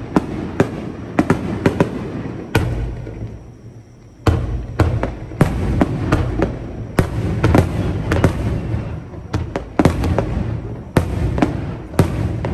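Fireworks display: aerial shells bursting in quick succession, many sharp bangs over a deep rolling rumble. The bangs ease off into a short lull about two and a half seconds in, then resume in dense volleys.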